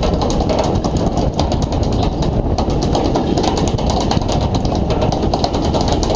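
A fishing boat's engine running, heard as a steady low rumble mixed with wind and sea noise on the open deck, with a constant fine crackle over it.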